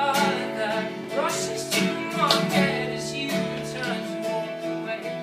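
Acoustic guitar strummed, with a man singing over it, the playing easing off a little toward the end.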